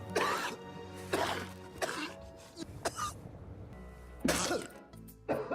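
A man coughing: several short, separate coughs spaced a second or so apart, over soft background music.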